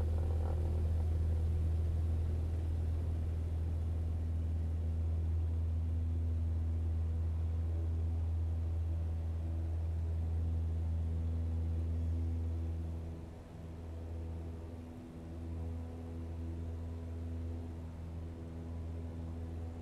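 Twin-engine turboprop airliner (ATR 72) on the runway, its propellers giving a steady low drone with a few steady higher tones. About two-thirds of the way through, the drone drops and becomes quieter and more uneven.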